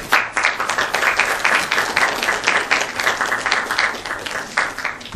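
Audience applauding: many hands clapping in a dense patter that thins out and stops just before the end.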